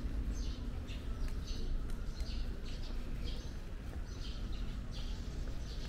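Small birds chirping, short high calls repeating about once or twice a second over a steady low rumble.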